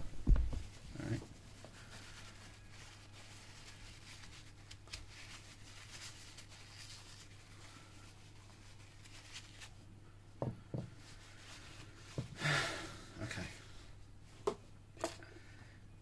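Handling noise from steel lock parts: a few knocks and clicks as they are picked up and set down on the paper-covered desk, and a short rustle of a tissue wiping glue residue off the lock's plug about two-thirds of the way through.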